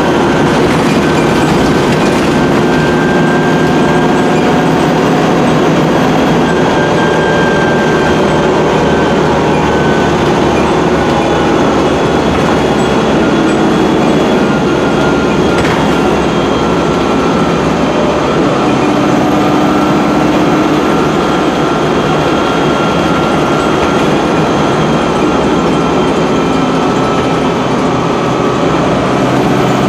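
Cummins ISC six-cylinder diesel engine of a Dennis Dart SLF bus running steadily at speed, heard from the saloon near the rear, with road noise and a steady high whine over the engine note.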